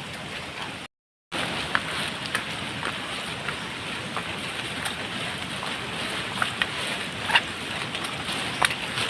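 Steady rush of falling water from a waterfall, with short sharp splashes or ticks scattered through it. It drops out completely for about half a second about a second in.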